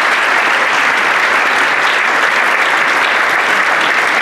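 Congregation applauding steadily, a dense crackle of many hands clapping.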